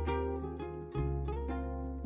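Background music of plucked strings, harp-like, with notes that ring and fade over a held bass note that shifts about a second in.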